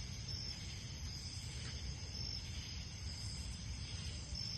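Insects trilling steadily in a high thin tone that swells briefly every two seconds or so, over a steady low rumble.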